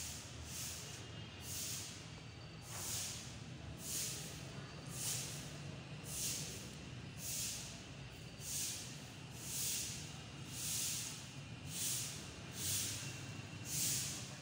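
Footsteps scuffing on a stone floor, about two a second, with every other step louder. A steady low hum runs underneath.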